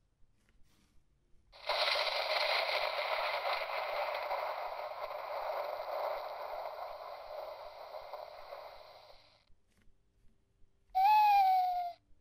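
A horror sound-effects box plays its recorded sounds through its small built-in speaker: first a thunder clap, a noisy rumble that lasts about eight seconds and slowly fades, then near the end a short owl hoot, one tone falling slightly in pitch.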